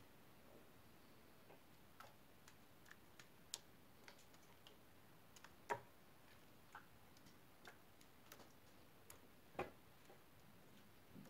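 Lumps of beeswax dropped and crumbled by hand into a stainless steel pan: faint, irregular small clicks and taps, with two louder knocks, one a little past halfway and one near the end.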